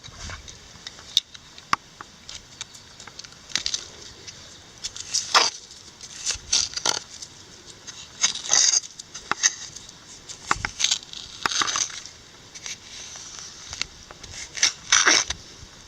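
A digging tool cutting into soil to recover a metal-detector target: irregular scrapes and crunches, some strokes louder than others.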